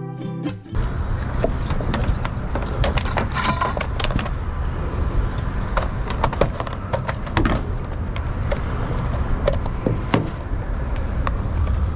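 A short stretch of guitar music cuts off within the first second. After it comes a steady low rumble with scattered knocks and clicks as a netted fish and the landing net are brought aboard a small skiff and handled on the deck.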